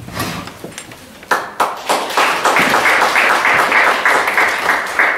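Audience applauding, starting about a second in and carrying on steadily.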